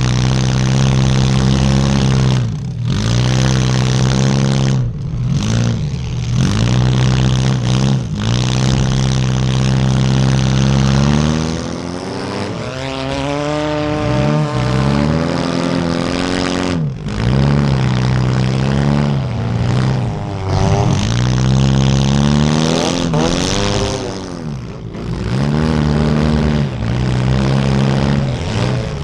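Compact demolition derby car's engine revving hard under load, the revs dropping and climbing back every few seconds as the throttle is lifted and floored again.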